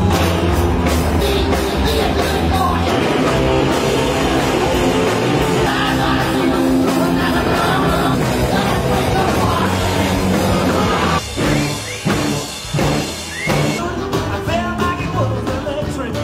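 Rock music with singing, played loud; about eleven seconds in, the band breaks into short stop-start stabs.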